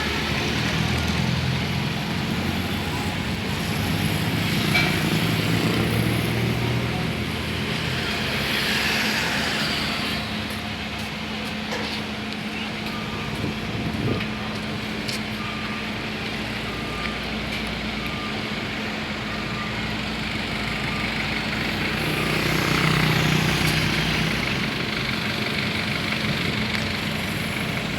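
Road traffic: vehicles passing one after another, swelling and fading several times over a steady low hum. Through the middle there is a run of short, evenly spaced beeps.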